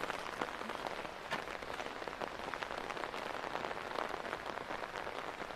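Steady rain, with many scattered drops tapping close by at irregular intervals.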